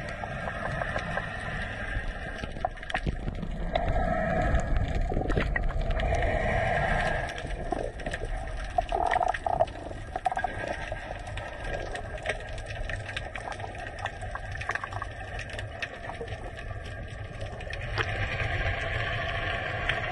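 Underwater sound through an action camera's housing: a steady, muffled low rush of water with scattered small clicks and knocks.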